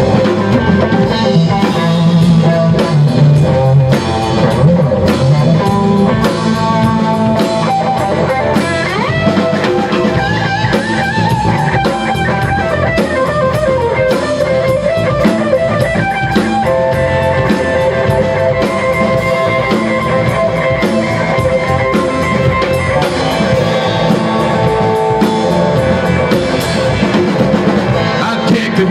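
Rock band playing live: a drum kit, electric guitars and a keyboard.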